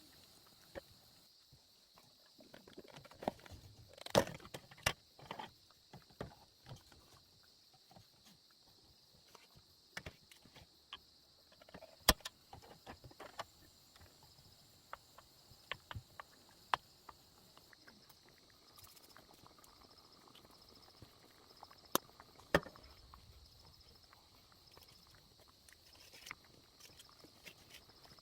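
Crickets chirping steadily in the background, with scattered sharp clicks and knocks throughout, the loudest about 4, 12 and 22 seconds in.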